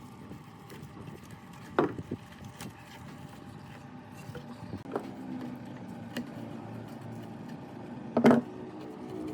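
Metal tools and parts knocking during hand work on an old plate compactor: two loud clanks with a short ring, one about two seconds in and one near the end, with a few lighter clicks between.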